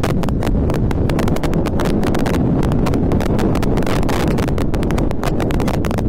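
Honda CB500X motorcycle ridden over a rough dirt track. A steady low rumble of engine and wind runs under a dense, irregular clatter of sharp clicks and knocks as the bike rattles over stones.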